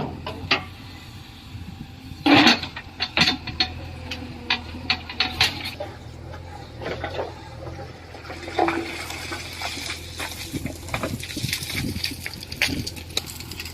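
Irregular sharp knocks and clatter, the loudest about two seconds in, over a faint low steady hum.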